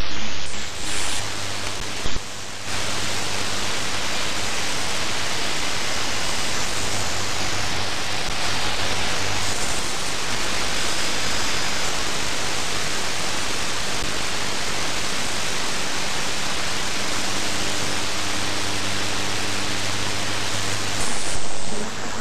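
Static from a FlexRadio FLEX-3000 software-defined receiver tuned through the 22-metre shortwave band between stations: a steady hiss of band noise with a few faint whistling tones. The hiss dips briefly a little over two seconds in.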